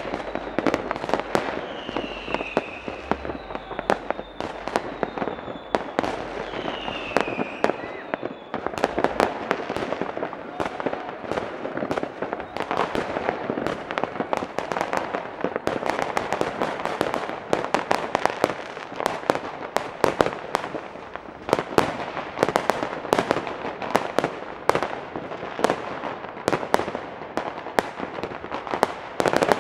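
New Year's Eve fireworks going off all around: a dense, continuous barrage of bangs, cracks and crackling from rockets and firecrackers, with two short falling whistles in the first several seconds.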